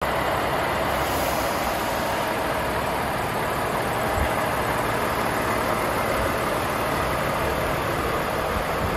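Volvo FH 540's 13-litre six-cylinder diesel engine idling steadily.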